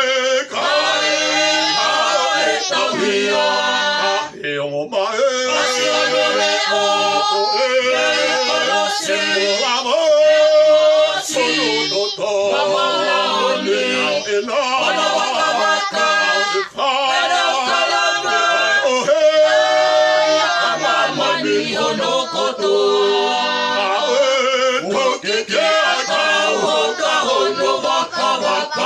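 A family group of men, women and children singing together without accompaniment, in long held notes.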